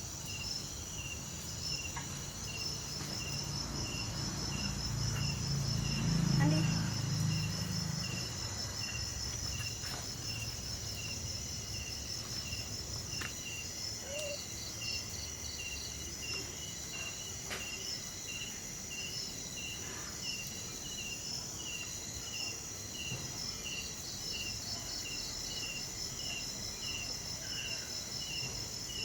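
Insects chirping in a steady, regular pulse of high notes, crickets by the sound of it. A low rumble swells briefly about five to seven seconds in, and there are a few faint knocks.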